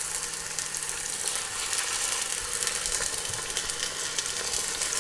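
Pieces of beef cheek sizzling as they sear in hot olive oil in a cocotte: a steady frying hiss with fine crackling.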